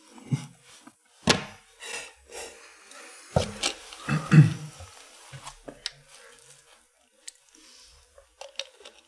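A few short bursts of stifled laughter in the first half, then scattered light clicks and rubbing as a plastic water bottle is handled and drunk from.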